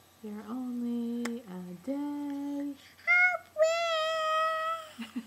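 A woman sings a few long held notes, then a toddler answers with two high, drawn-out sung notes about three seconds in, louder than the woman's.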